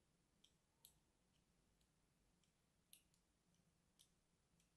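Tip of small pointed scissors scoring and cutting into a hard white bar of soap: a few faint, crisp, irregular clicks and scratches, the loudest about a second in and about three seconds in.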